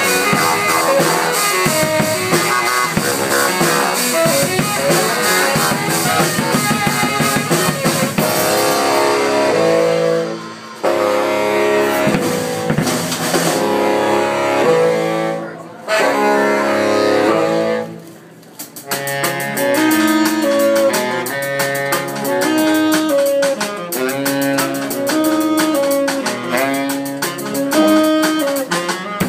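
Live saxophone duo with a drum kit playing a driving funk dance groove, with repeating sax riffs over steady drum hits. The music drops out briefly a few times around the middle, then the band comes back in with a repeating riff.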